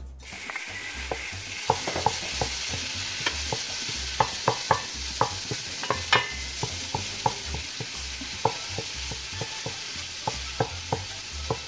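Margarine sizzling as it melts in a hot pot, starting suddenly as it drops in, with frequent sharp pops and a wooden spoon stirring it around.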